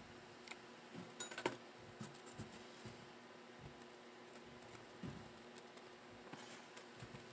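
Faint rustling and a few small clicks of hands handling stiff satin ribbon leaves and felt, with a small cluster of clicks about a second in.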